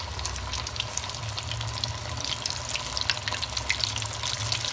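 Flour-coated chicken wings deep-frying in hot oil: a steady sizzle thick with crackling pops.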